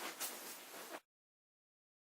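Faint background hiss with a couple of soft brief noises, cut off abruptly about a second in to dead silence.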